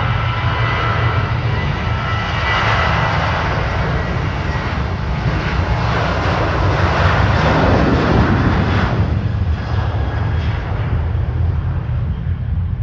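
Boeing 737-800's CFM56-7B turbofan engines at takeoff power, a loud continuous jet roar over a steady low rumble, with a thin whine over it in the first couple of seconds. The roar swells to its loudest about seven or eight seconds in, then eases off.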